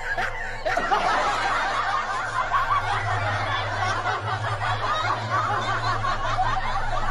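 Continuous laughter from several voices, a dense run of snickers and chuckles over a low steady hum.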